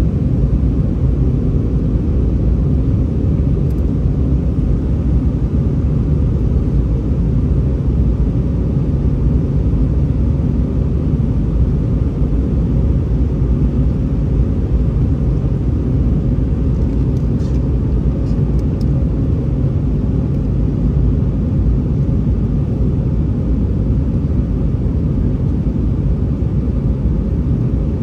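Steady, loud low rumble of an Airbus A319-131 heard from inside the cabin: its IAE V2500 engines and the airflow, holding an even level with no rise or fall.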